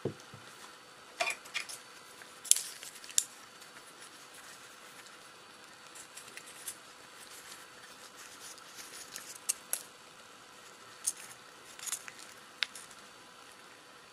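Sharp, scattered clicks and taps of an opened metal fish tin knocking against a ceramic plate as it is tipped to turn out the saury in sauce. There is a soft low thud at the very start.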